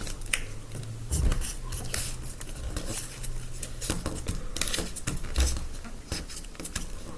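A sheet of paper being folded and creased by hand along an existing fold, with rapid, irregular crisp crackles and rustles.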